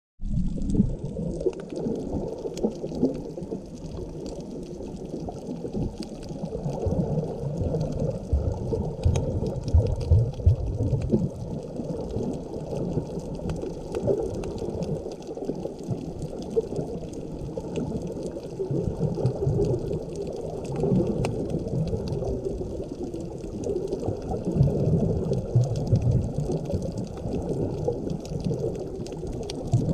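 Underwater sound picked up by a GoPro Hero6 Black's microphone: a muffled, uneven rumble and slosh of moving water, with faint scattered ticks above it.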